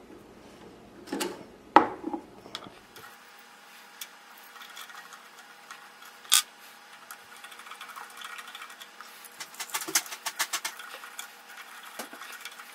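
Small metal clicks and knocks from the rotary hook assembly of a Cowboy CB3200 leather sewing machine as its cap and parts are worked loose with a screwdriver and fingers. There is a sharp click about two seconds in, another near the middle, and a run of quick clicks near the end, over a faint steady hum.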